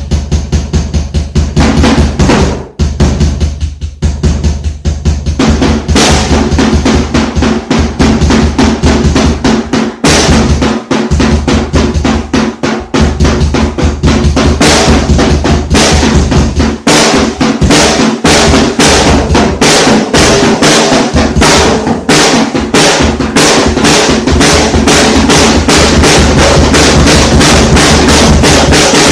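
Drum kit played fast, with rapid bass drum and snare strokes and rolls. There is a brief break about two and a half seconds in.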